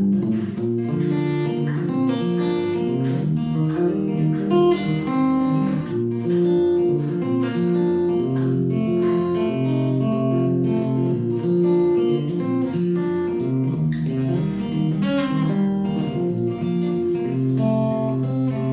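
Acoustic guitar played as an instrumental break in a live folk song, plucked and strummed chords.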